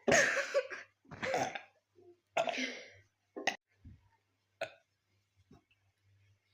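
Burps in quick succession: three long, loud ones in the first three seconds, then a few short, fainter ones.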